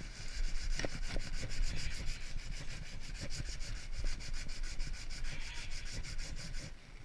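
Sandpaper rubbing steadily over a wooden piece, a dry rasping with a fast, even pulse of strokes.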